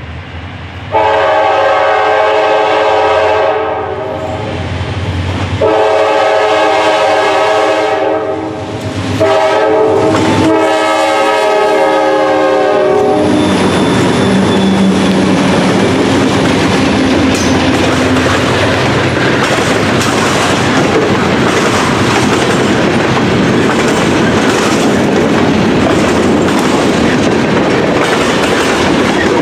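Diesel freight locomotive's multi-chime air horn sounding the grade-crossing signal: long, long, short, long. The locomotives then pass close, followed by the steady rumble and clatter of freight tank cars rolling by on the rails.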